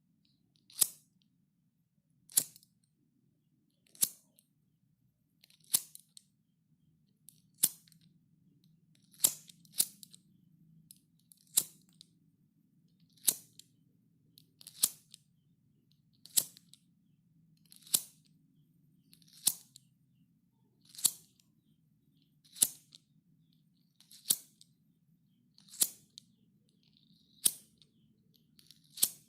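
A lighter clicked over and over: a single sharp click roughly every second and a half, about eighteen in all, over a faint low hum.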